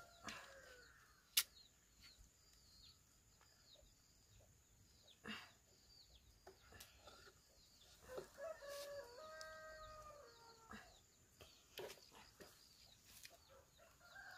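A rooster crows once about eight seconds in, one long stepped call lasting a little over two seconds, with faint high chirping around it. A single sharp click comes about a second and a half in.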